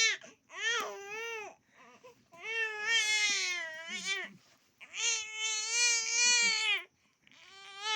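Baby crying in long, high wails, about four cries with short breaths between them.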